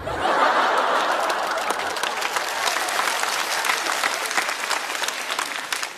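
Studio audience applauding in response to a stand-up comedian's punchline. The applause starts at once, is loudest in the first second or two and dies away near the end.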